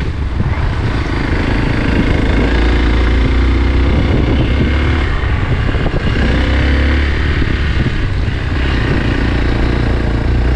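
Motorcycle engine running while the bike is ridden, its note rising and falling as the throttle changes.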